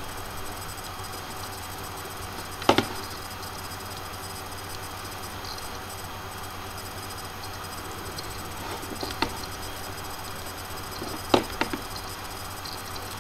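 Computer mouse clicking over a steady hiss and low hum from the recording microphone. There are a few sharp clicks: a quick pair about two and a half seconds in, a single click a little after nine seconds, and another quick pair near the end.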